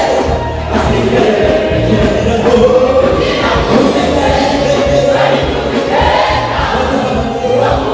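Live gospel choir singing in full voice through microphones, lead and choir voices together over an amplified band with a steady bass line.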